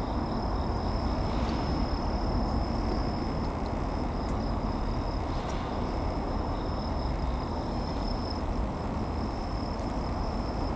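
Steady low rumble of railway rolling stock in a depot yard, with a thin, even high-pitched tone over it.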